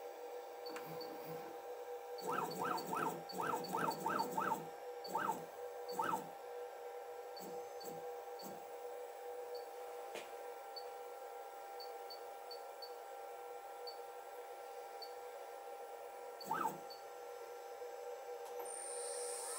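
CNC router standing powered with a steady electrical hum, broken by clusters of short pitched chirps in the middle. Near the end its 800 W spindle starts spinning up with a rising whine.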